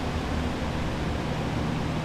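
Steady rush of air and hum from water-damage drying equipment: axial air movers and dehumidifiers running together to dry out a flooded space.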